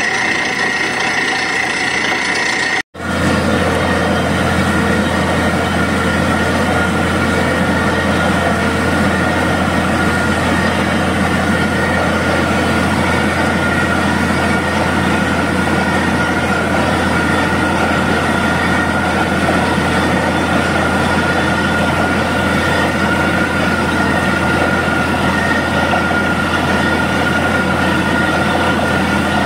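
Borewell drilling rig running steadily under load, its compressor air-blowing rock dust out of the casing; after a sudden break about three seconds in, it runs on with a steady low hum while water and slurry gush from the casing, a sign the bore has struck water.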